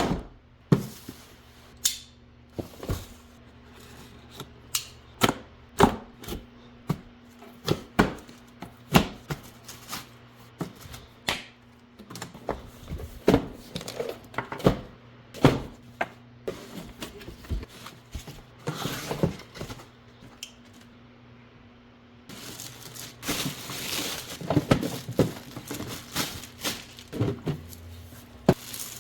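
Cardboard box and packaging being handled: a long run of irregular sharp taps and knocks. About two-thirds of the way through, a steady crinkling of plastic wrapping begins.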